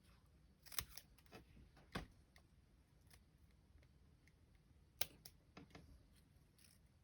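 A few quiet, sharp snips of scissors cutting ribbon, spaced a second or more apart, the clearest about a second in, at two seconds and at five seconds.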